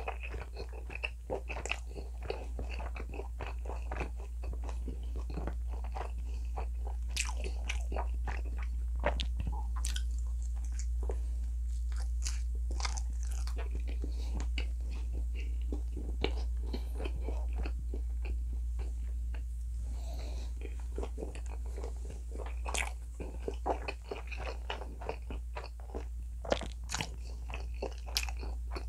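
A person chewing and biting mouthfuls of pizza close to the microphone, with a dense run of small, irregular wet clicks and crackles. A steady low hum runs underneath.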